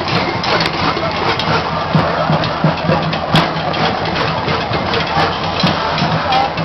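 Protest crowd noise: a dense, constant clatter of sharp knocks and bangs over a steady low drone, with one sharper crack about three and a half seconds in.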